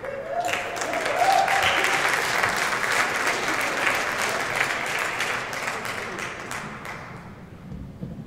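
Audience applauding, swelling quickly about half a second in and then slowly dying away, with a voice or two calling out near the start.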